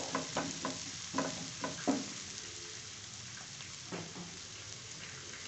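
Chopped onions sizzling in mustard oil in a frying pan, stirred with a spatula that scrapes and knocks against the pan several times in the first two seconds. After that the steady sizzle of the frying goes on alone, with one more knock about four seconds in.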